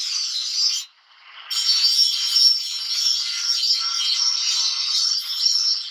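Handheld electric angle grinder grinding a steel blade: a steady, high-pitched hiss of the disc on the metal. It breaks off briefly about a second in, then carries on.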